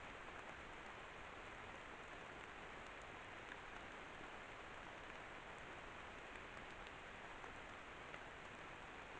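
Faint steady hiss from a trail camera's microphone, with a few faint scattered ticks.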